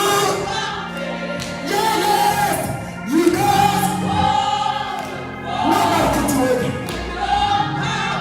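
Gospel choir singing with instrumental accompaniment, voices sliding between long held notes.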